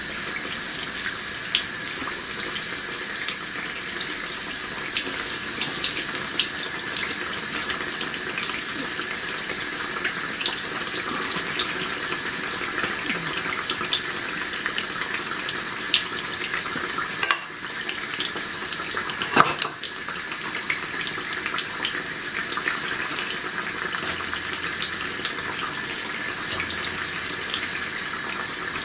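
Batter-coated vegetable pakoras deep-frying in hot vegetable oil in a karahi: a steady sizzle full of small crackles and pops. Two sharper knocks come about two seconds apart, a little past halfway.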